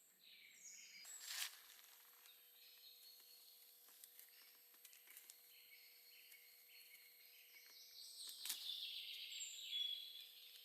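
Quiet woodland ambience: faint birdsong with short repeated high notes, and two brief rustles or clicks, one about a second in and one near the end.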